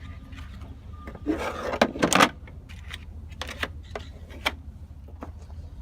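Work being handled by hand: a brief rattling clatter about a second and a half in, then a few sharp separate clicks, over a steady low hum.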